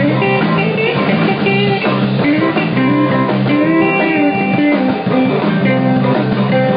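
Live rock band with electric guitars, bass guitar and drums playing without vocals, a lead guitar line with sliding, bending notes over a steady bass and drum groove.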